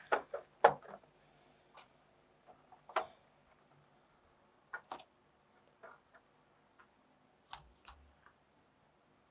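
Plastic clips of an Asus ROG Strix GL502VY laptop's bottom cover clicking and snapping loose as the cover is pried open with a tool: a series of sharp, irregular clicks, loudest in the first second and again about three seconds in, then fainter.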